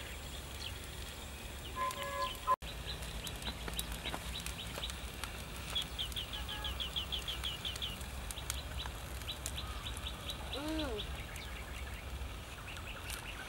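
Birds chirping outdoors, with a quick run of repeated chirps about six seconds in and a short arched call near the end, over a low steady rumble.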